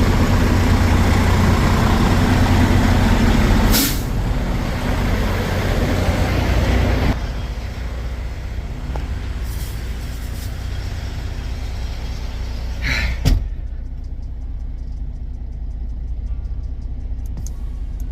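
Freightliner Cascadia semi truck's diesel engine running, with short air hisses from the truck's air system. It is louder for the first seven seconds, then quieter and steady, and a brief hiss ending in a sharp click comes near the end.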